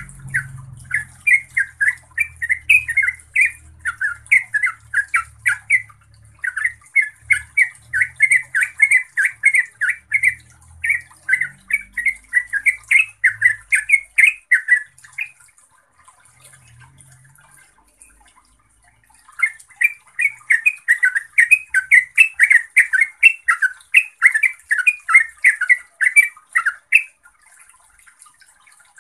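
Yellow-vented bulbul singing long, fast runs of short chattering notes, the rapid continuous 'ropel' song of a bird in full voice. The song breaks off for about four seconds in the middle, then resumes.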